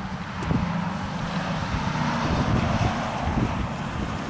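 Narrow-gauge train drawing near, hauled by a W. G. Bagnell 0-4-0 saddle-tank steam locomotive. The sound of the train gets louder about half a second in as it approaches, with wind on the microphone.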